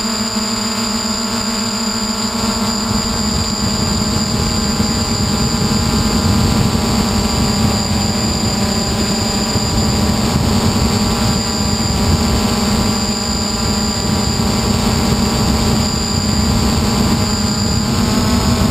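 Hexacopter drone's six electric motors and propellers humming steadily in flight, a mix of steady tones from low to high pitch, with rough rushing air noise underneath.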